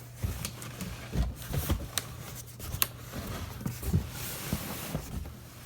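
Handling noises from a cardboard box: irregular knocks, scrapes and rustling, with a louder knock about four seconds in.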